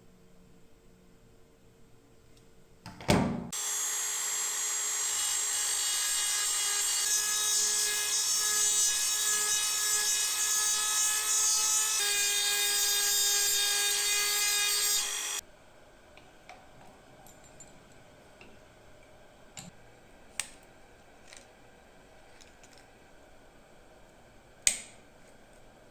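A small power tool starts about three seconds in and runs steadily with a whine for about twelve seconds, stepping slightly in pitch twice, then stops abruptly. Afterwards come a few light clicks and taps, the sharpest near the end.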